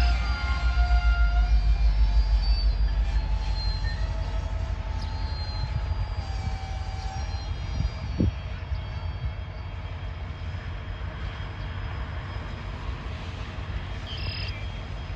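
BNSF freight train rolling slowly in reverse: a low rumble with thin steady wheel squeals over the first several seconds, growing quieter.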